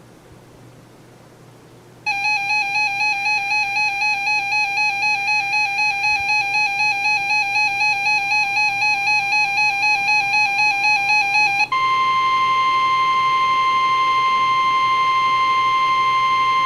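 Faint hiss, then about two seconds in a weather radio's built-in alert alarm sounds: a high warbling tone pulsing about four times a second. About twelve seconds in it gives way to the steady NOAA Weather Radio 1050 Hz warning alarm tone, the signal that a warning broadcast follows.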